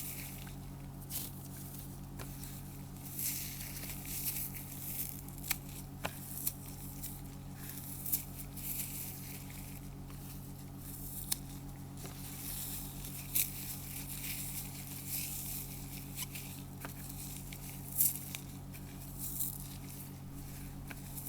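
Dry, soap-coated floral foam, scored into a grid, being crushed by hand: irregular crunchy crackling with sharp snaps here and there, over a steady low hum.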